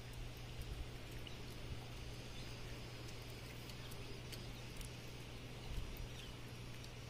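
Quiet background with a steady low hum, faint scattered ticks and a few short high chirps.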